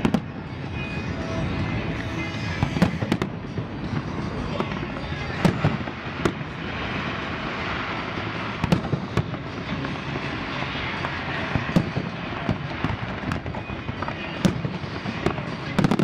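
Fireworks and firecrackers going off: sharp bangs at irregular intervals, several close together, over a continuous background of more distant bangs.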